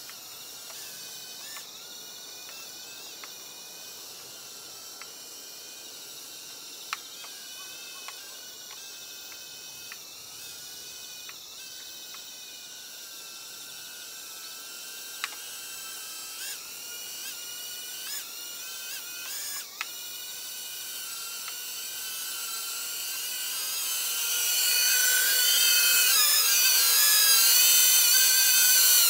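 Multirotor camera drone's propellers whining, with several pitches wavering up and down together as it manoeuvres, growing much louder over the last several seconds as it comes closer. A few sharp ticks sound earlier on.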